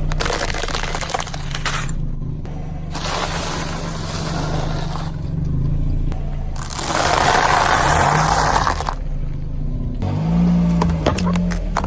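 A car's engine running while its tyres roll over objects and crush them, in three long passages of crunching and crackling. Near the end the engine briefly revs up and back down.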